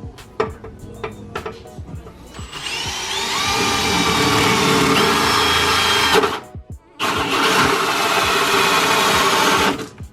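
Power drill boring a hole. After a few light clicks and knocks, the drill spins up about two and a half seconds in and runs under load, pauses briefly a little past the middle, then runs again until near the end.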